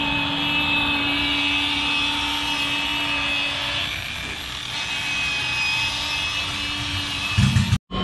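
Electric rotary polisher running with a steady motor whine as its foam pad buffs fresh car paint. The sound cuts off abruptly just before the end.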